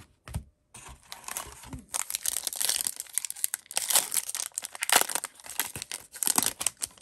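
A trading-card pack wrapper crinkling and tearing as it is ripped open, a dense run of crackles loudest about four to five seconds in.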